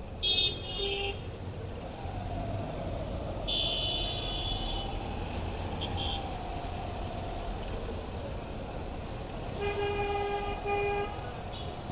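Vehicle horns honking in city traffic over the engine and road noise of a moving motorcycle. A short high toot comes just after the start and is the loudest sound, another high toot follows around four seconds in, and a lower horn sounds twice near the end.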